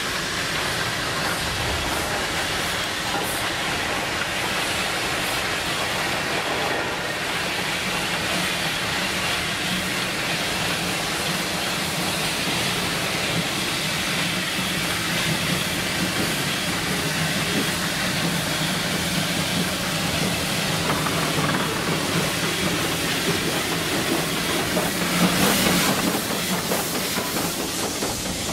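Steam locomotive running, a steady rush of steam hiss and rail clatter, with a brief louder surge about 25 seconds in.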